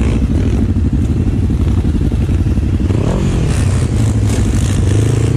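Sport quad (ATV) engine running at low revs, with a short rev about three seconds in.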